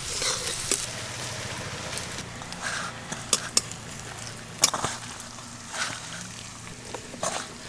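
Hands mixing cauliflower florets with yogurt and spices in a steel bowl: irregular wet squelches and light clicks against the bowl, over a steady sizzle of frying.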